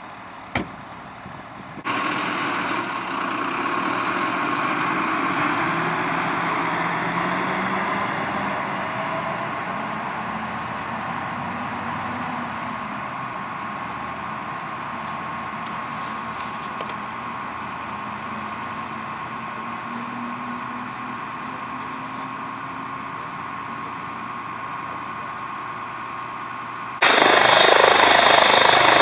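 Vehicle engines running steadily with a constant hum. Near the end this cuts abruptly to a helicopter running much louder on the ground.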